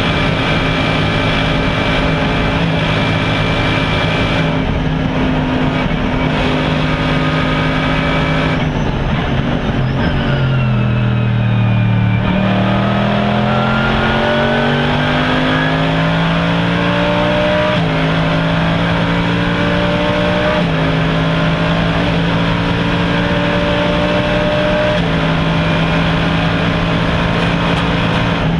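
Mercedes-Benz SLS AMG GT3's naturally aspirated 6.2-litre V8 heard from inside the race car's cabin. It runs at steady high revs, then its pitch falls as the car slows and gears down about a third of the way in. It climbs again under acceleration, with three upshifts in the second half, each a sudden drop in pitch.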